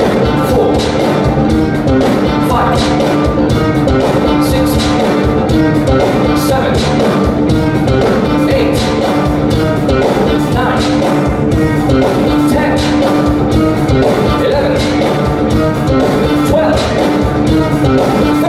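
Live rock band and orchestra playing loud, driving music, with drums beating steadily under a held note.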